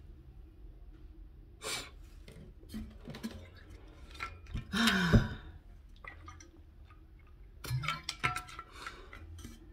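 Handling an insulated water bottle: a few light clicks and knocks from the lid, a short sigh with a falling pitch about five seconds in, and a quick run of clicks near the end as the bottle comes up to drink.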